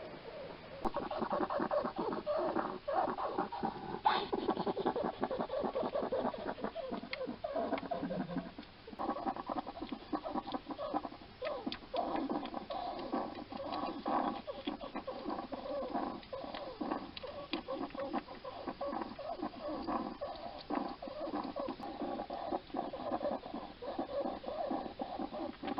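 A hedgehog close to the microphone, making a continuous rapid crackling rasp of chewing and noisy, wheezy breathing, with a brief lull about a third of the way in. The noisy breathing is put down to scarring on its lungs from an earlier respiratory infection or lungworm.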